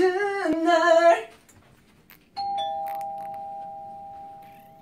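A voice sings briefly in the first second. Then, about two and a half seconds in, a two-note electronic door chime rings, a higher note and then a lower one, both fading slowly.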